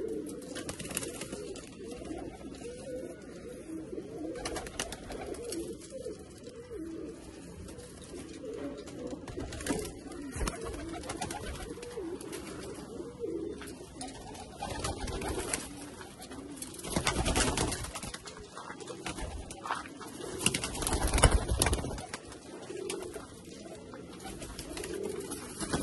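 Domestic Malwai pigeons cooing steadily in a loft, a continuous overlapping low murmur. Two louder bursts of noise come about two-thirds of the way through.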